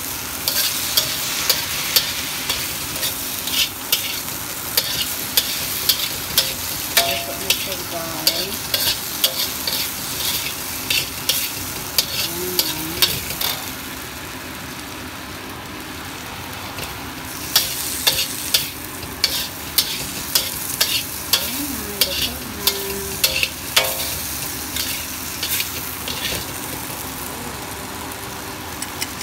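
Okra and carrot stir-frying in a wok: a steady sizzle with repeated scrapes and clinks of a metal spatula against the wok, the strokes thinning out for a few seconds about halfway through.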